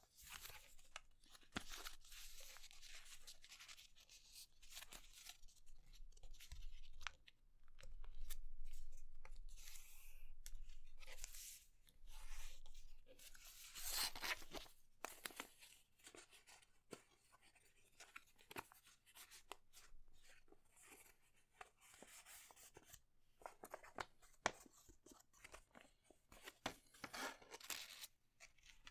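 Sheet of printer paper being folded and creased by hand into a paper airplane: irregular rustling and crinkling with sharp little crackles, louder about halfway through and again near the end.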